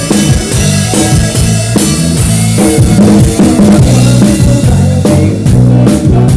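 A band playing with a drum kit prominent, sharp drum strokes over steady low bass notes; the drum strokes come quicker and harder near the end.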